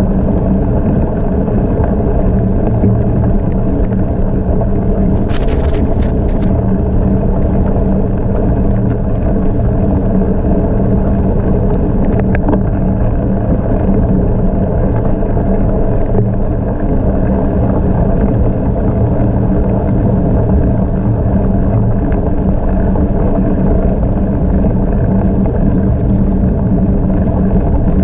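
Steady loud rush of wind over the microphone and tyres rolling on gravel as a bicycle is ridden at speed. A short run of sharp clicks comes about five to six seconds in, and a single click near the middle.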